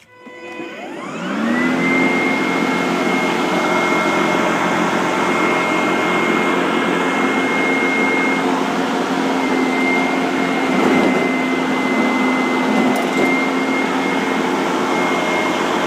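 Solaris 24-volt cordless electric lawnmower's motor starting up, its whine rising over about a second and a half, then running steadily with the blade whirring.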